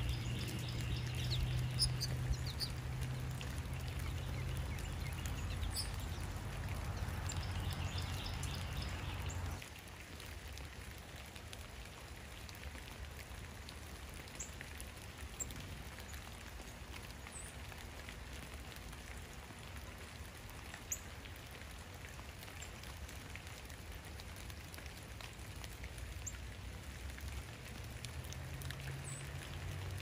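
Steady rain falling, with scattered sharp drips. A low steady hum sounds under it for the first third and cuts off suddenly about ten seconds in.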